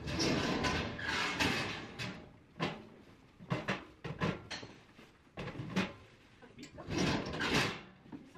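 Parcels and plastic mailers being handled at a post office counter: rustling, with a scattering of knocks and clunks in between. The rustling is loudest in the first two seconds and again near the end.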